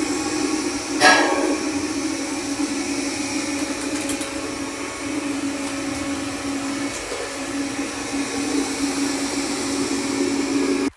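Xiaomi Mi Robot Vacuum-Mop Essential running: a steady motor and suction hum with a short, louder knock about a second in. The hum cuts off abruptly at the end.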